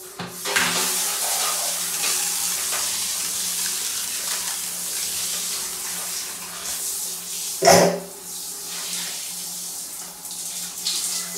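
Shower spray running steadily, a continuous watery hiss with a low steady hum underneath. About eight seconds in there is one brief loud thump, after which the hiss is a little quieter.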